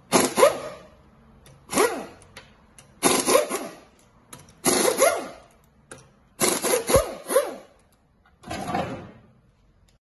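Air impact wrench running in six short bursts, each about half a second to a second long, spinning the lug bolts off a rear wheel.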